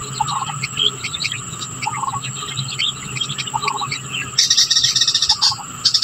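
Outdoor chorus of birds and insects: a steady high insect whine, a short low call repeating about every second and a half, and scattered high chirps. About four and a half seconds in, a loud rapid chattering trill lasts about a second.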